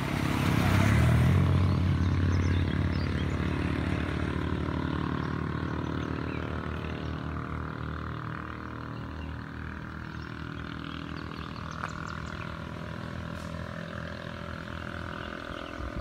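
A motor vehicle's engine running close by, loudest about a second in and then slowly fading as it moves away. A steady high chirring continues in the background.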